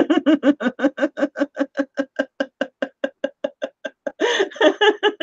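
A woman laughing hard, a long run of quick "ha" pulses, about six a second, growing fainter, then a louder burst of laughter near the end.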